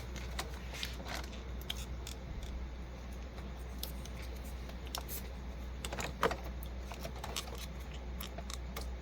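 Small clicks and rustles of plastic parts being handled while an ink cartridge is reprimed with a syringe, over a steady low hum. One sharper click comes about six seconds in.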